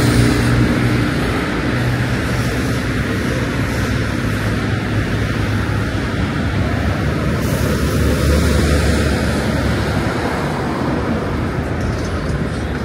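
Motor traffic: a vehicle engine rumbling over steady road noise, loudest at the start and then settling to a steady level.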